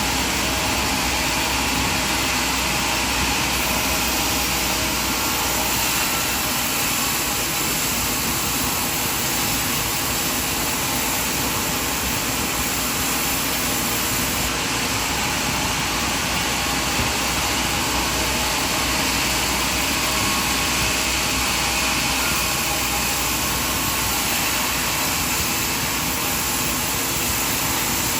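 Sawmill machinery running steadily, a loud, even mechanical whir with a strong hiss and no clear strikes or pauses.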